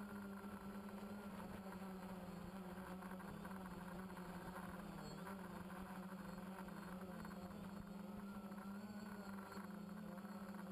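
Multirotor drone's electric motors and propellers buzzing steadily, the pitch wavering slightly as the craft holds and shifts its position in the air.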